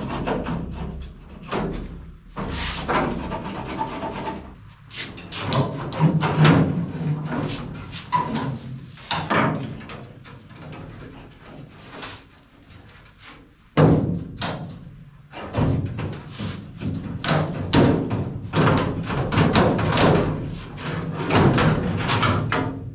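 The steel roof skin of a 1978 Datsun 280Z being pried and pulled loose from the body: irregular metal knocks, thunks and clatters, with a few longer stretches of scraping and rattling sheet metal.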